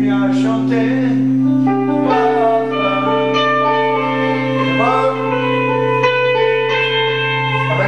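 Electric guitars playing a slow jam: long held notes and a few bent notes over a steady low drone.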